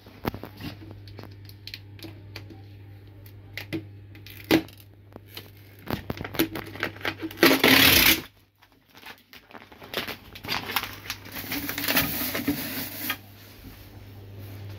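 Phone handling noise: clicks, rustling and a loud scrape against the microphone about eight seconds in. Under it runs the steady low hum of the train standing at the platform.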